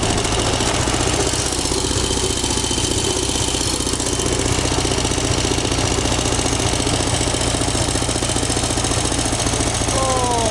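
Motor rickshaw's engine running steadily under way, with wind buffeting the microphone of the riders in the open back.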